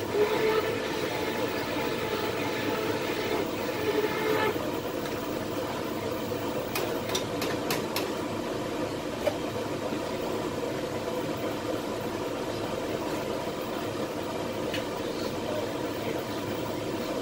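Steady rushing noise of a multi-burner gas soap cooker running full, with a humming tone over it that stops about four seconds in and a few light clicks around seven to eight seconds.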